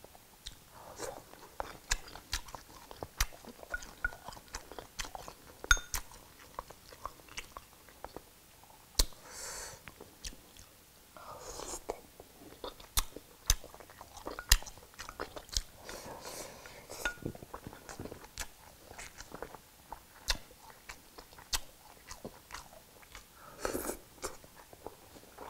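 Close-up chewing and mouth sounds of a person eating soup, with many sharp clicks and taps of chopsticks against the dishes and a few short sips of broth from a bowl, one about halfway through.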